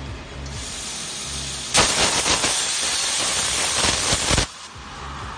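Plasma cutting torch on a CNC pipe cutting machine cutting a steel tube. A softer hiss starts about half a second in. A little under two seconds in the arc fires with a loud, harsh hiss that lasts about two and a half seconds and then cuts off suddenly.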